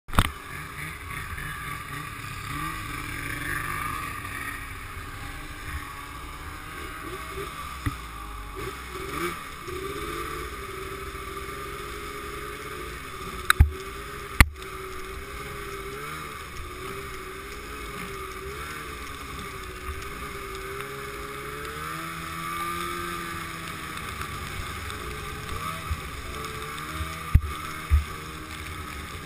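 Snowmobile engine running while the sled is ridden across snow, its note rising and falling with the throttle. A few sharp knocks come about halfway through and again near the end.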